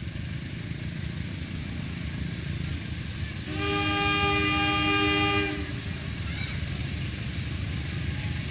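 CC201 diesel-electric locomotive approaching with a steady low engine rumble. A little over three seconds in, its horn sounds one blast of several notes together, lasting about two seconds.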